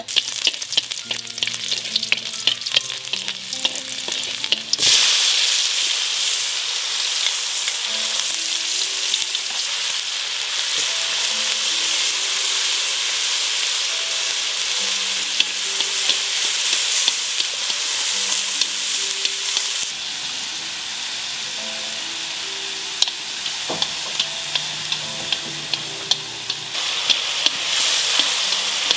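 Food frying in hot oil in a pan: light crackling at first, then a loud sizzle that starts suddenly about five seconds in and keeps going, with a few sharp utensil clicks later on.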